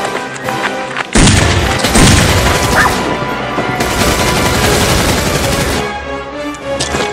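Rapid gunfire sound effect, a dense run of shots that starts suddenly about a second in and breaks off shortly before the end, laid over background music.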